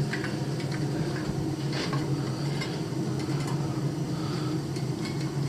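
Old boiler firing after ignition: a steady low hum from the running burner, with a few faint clicks over it.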